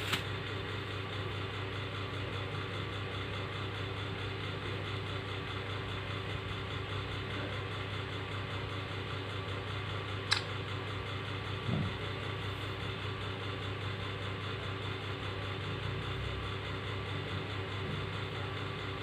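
Steady low mechanical hum, like a fan or motor running, with a single sharp click about ten seconds in.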